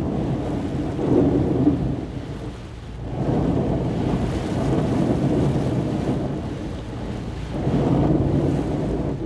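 Heavy rain and water spray hitting a car's windshield, heard from inside the car as it drives through standing water on the road. A low rushing noise that swells and eases several times.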